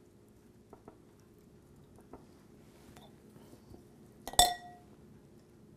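A utensil strikes the side of a glass mixing bowl once, a sharp ringing clink a little over four seconds in, after a few faint taps and clicks.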